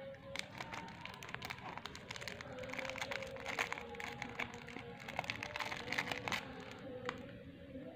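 Thin clear plastic wrapper crinkling and crackling in a small child's fingers as she handles a mini puzzle packet, in many short irregular crackles.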